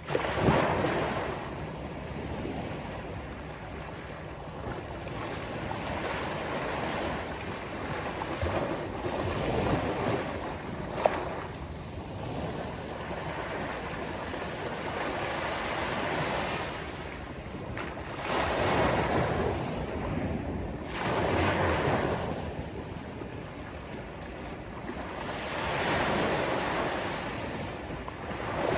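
Sea waves breaking and washing up a beach, swelling and falling every few seconds with several louder surges. Wind buffets the microphone.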